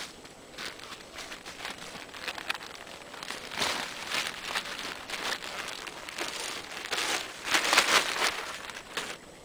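A plastic bag of peat moss crinkling and rustling as it is handled and emptied, in irregular bursts. It swells about four seconds in and is loudest near the end, as the bag is lifted and shaken out into a wheelbarrow.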